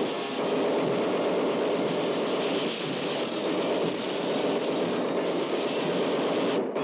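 Cartoon sound effect of police Thompson submachine guns firing without a break at a steel robot, a continuous rapid clatter that cuts off suddenly near the end.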